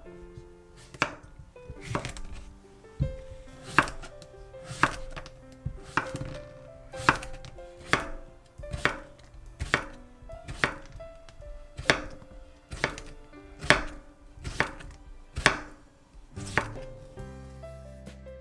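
Knife chopping food on a cutting board in slow, even strokes, about one a second, stopping shortly before the end. Soft background music plays underneath.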